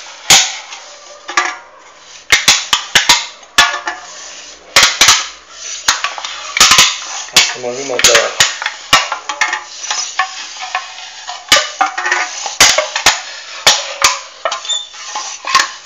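Thin aluminium soda can turned by hand against a fixed blade to score it round: scraping and crinkling of the can wall with many irregular sharp clicks.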